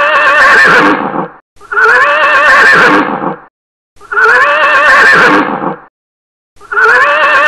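A girl imitating a horse with her voice: four loud, wavering whinnies of about one and a half seconds each, with short pauses between them.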